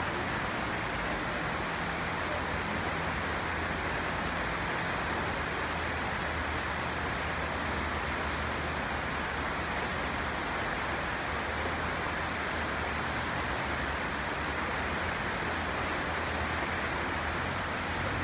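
River in flood after heavy rain: fast brown floodwater rushing in a steady, unbroken hiss.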